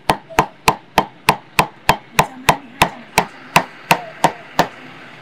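Cleaver chopping roast pork on a round wooden chopping block: an even run of about fifteen sharp chops, about three a second, that stops near the end.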